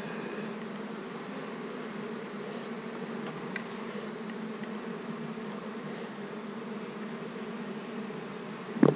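Steady buzzing of many honeybees around an open hive, a continuous hum, with a brief louder sound right at the end.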